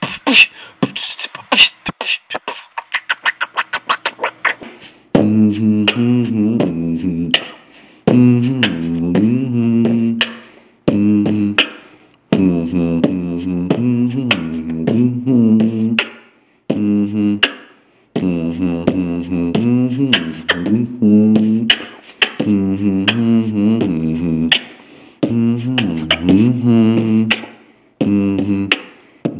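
Beatboxing, recorded on a basic microphone: it opens with a fast run of sharp mouth clicks that speeds up, then from about five seconds in a hummed bass line with percussive clicks over it, in phrases of two to three seconds with short breaks between.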